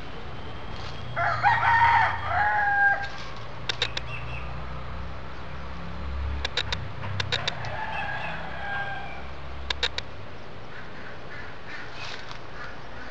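A rooster crowing twice: a loud crow about a second in and a fainter one about six seconds in. A few short, sharp clicks fall between and after the crows.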